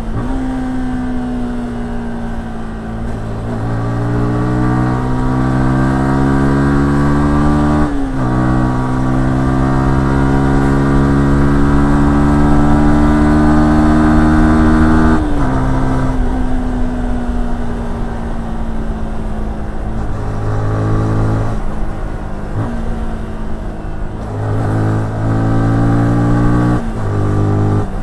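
Yamaha R15S's 155cc single-cylinder engine pulling hard under acceleration, its pitch rising steadily, dropping sharply on an upshift about 8 seconds in, then rising again. About halfway through the throttle closes and the engine winds down, followed near the end by several short throttle blips.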